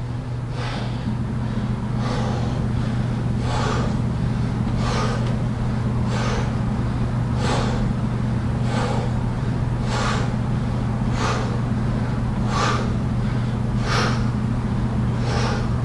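A man's sharp, rhythmic exhales, about one every second and a half, one with each rep of single-leg glute bridges, over a steady low hum.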